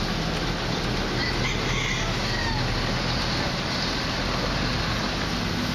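Steady outdoor background noise with a low engine hum, and a rooster crowing faintly about two seconds in.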